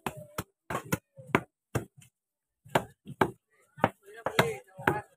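A mallet knocking on the spine of a large knife, driving it through a trevally on a wooden chopping block to cut it into steaks. There are about ten sharp knocks, roughly two a second, with a short pause midway.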